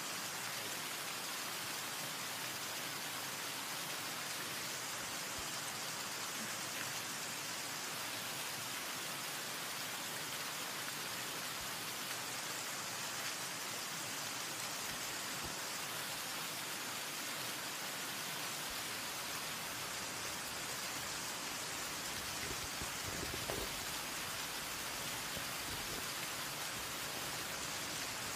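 A steady, even hiss like rain falling, unchanging throughout, with one faint knock about two-thirds of the way through.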